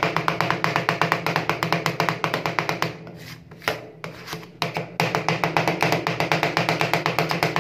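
Two metal spatulas rapidly chopping ice cream mixture on a frozen steel cold plate, about eight sharp clicks a second. About three seconds in the chopping stops for two seconds while the mixture is scraped and spread, with only a few single taps, then resumes.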